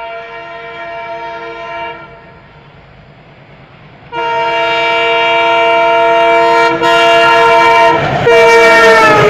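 Indian Railways locomotive horn blowing long blasts. The first fades off about two seconds in; after a quieter gap a much louder blast starts about four seconds in, with short breaks. Its pitch drops near the end as the train passes, and the rush of the passing train follows.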